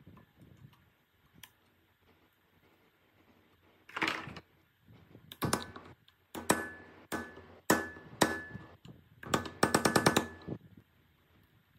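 Steel rod or punch set in a hole in a metal cutting machine's motor housing, struck with a hammer: a handful of separate sharp, ringing metal blows, then a fast run of taps near the end.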